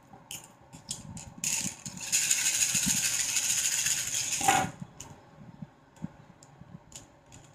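Cowrie shells rattled together in cupped hands for about three seconds, being shaken to cast a divination reading. The rattle ends in a knock as they are thrown onto the table, followed by a few light clicks as the shells are handled.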